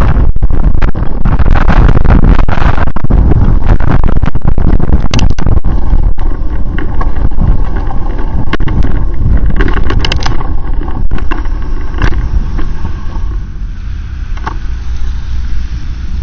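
Vehicle travelling on a wet road in the rain: a loud, heavy rumble with wind buffeting the microphone. It eases about six seconds in and drops lower near the end.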